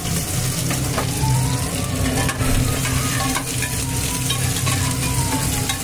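Sliced onions sizzling in hot oil in a pressure cooker, with a few knocks of a spoon stirring them against the pot.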